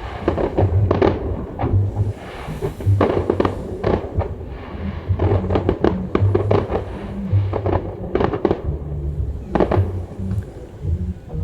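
Fireworks bursting overhead, many bangs in quick succession with crackling between them, recorded through a phone microphone.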